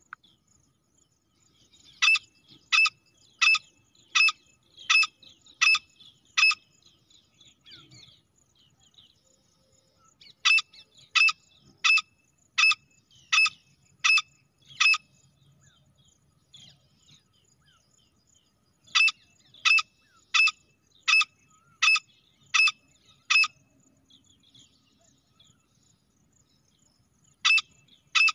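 Female grey francolin calling: bouts of about seven sharp, evenly spaced notes, a little under a second apart, repeated every eight seconds or so. Faint chirps come between the bouts.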